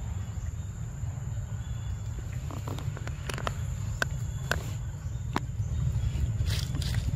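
Outdoor forest ambience: a steady high-pitched insect drone over a low rumble, with several sharp clicks about three to five seconds in and a brief rustle near the end.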